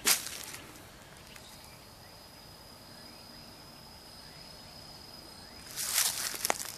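Footsteps on dry leaf litter at the start and again near the end, with a steady high-pitched insect trill carrying on through the quiet stretch between them.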